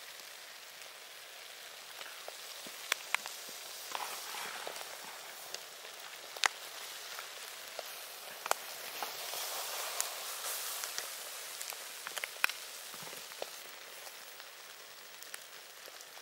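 Egg mixture sizzling in an aluminium mess tin set over charcoal: a steady hiss with scattered sharp pops and crackles.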